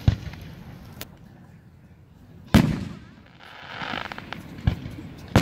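Fireworks going off overhead: a string of five sharp, echoing bangs, the loudest about two and a half seconds in, with a rumble trailing after it.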